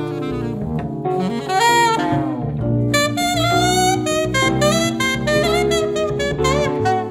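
Alto saxophone playing a jazz melodic line with bends and a quick wavering figure near the end, over a jazz ensemble's bass and held chords.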